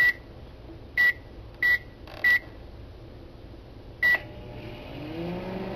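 Five short, high electronic beeps at uneven intervals, each a single clear tone, over a low hum. Near the end a low droning tone swells in and glides up in pitch before holding steady.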